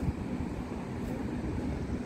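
Outdoor street ambience: a steady low rumble of road traffic mixed with wind on the microphone.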